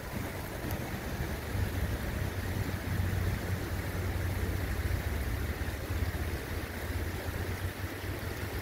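Steady rushing noise of a river flowing over rocks, with a low, fluttering rumble underneath.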